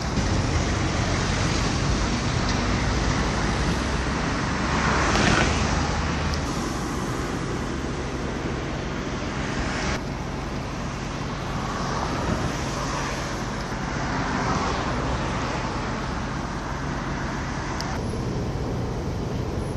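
Steady road traffic noise with a low hum, and a vehicle passing about five seconds in.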